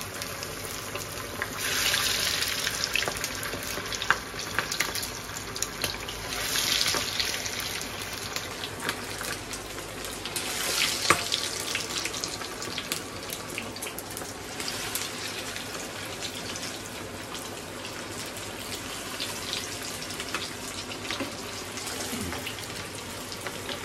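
Battered chicken pieces deep-frying in hot mustard oil in a kadhai: a steady sizzle dotted with small crackles, swelling a few times.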